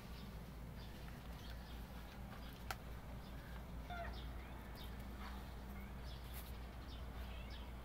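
Faint ambience with scattered short, high bird chirps over a low steady hum, and one sharp click a little under three seconds in.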